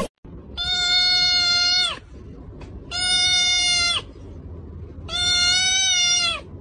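A kitten giving three long, steady meows about a second apart, each ending with a slight drop in pitch, as a finger presses on top of its head like a service bell.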